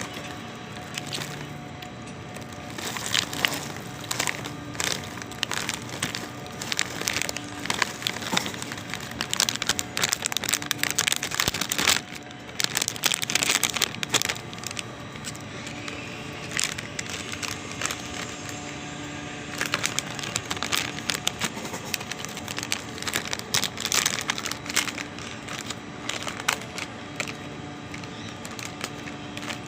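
Popcorn being eaten: irregular crunching and crackling with crinkling of the packaging, over music playing in the background.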